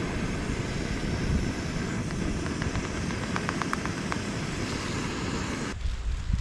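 Canister gas camping stove burner running with a steady roar, a few light clicks sounding over it in the middle; the roar stops abruptly near the end.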